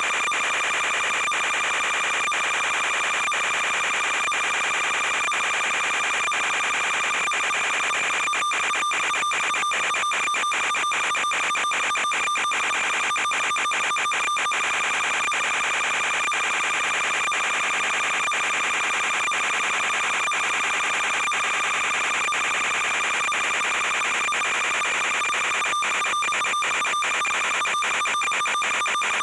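Steady, high-pitched electronic buzz over hiss from a quadcopter's analog FPV video link, unchanged as the craft hovers and then flies forward. Rapid crackling dropouts break it for several seconds about a third of the way in and again near the end.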